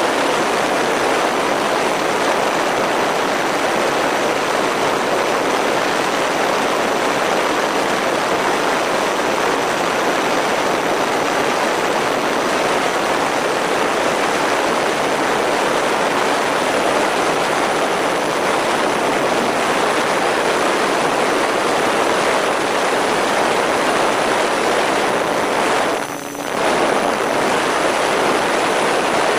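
Steady rush of airflow and the whir of an electric RC plane's motors and propellers, heard from a camera mounted on the airframe in flight, with a faint thin high whine over it. Near the end the sound briefly drops and then comes back.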